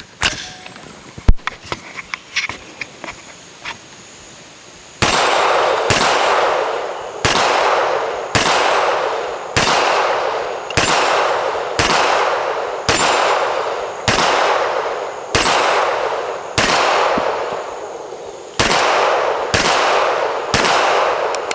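Handgun shots on a shooting range: two shots about a second apart near the start, then from about five seconds in a steady string of about fifteen shots, roughly one a second. Each shot leaves a long fading echo.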